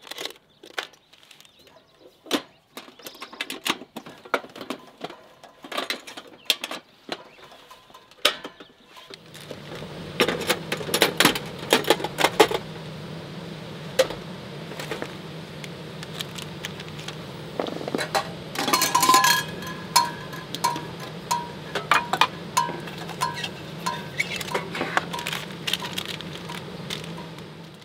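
Steel Stanley Classic lunch box being packed and closed: scattered metallic clicks, knocks and rattles of the lid, latches and items set inside. A steady low hum comes in about nine seconds in and runs under the handling.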